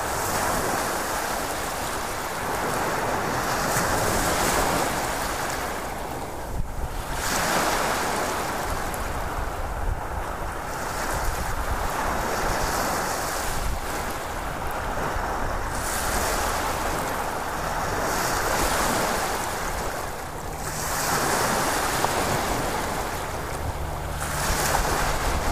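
Ocean surf: waves washing in broad noise that swells and fades every few seconds. A low steady hum joins about two-thirds of the way through.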